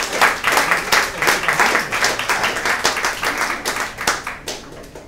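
Audience applauding, dense clapping that dies away about four and a half seconds in.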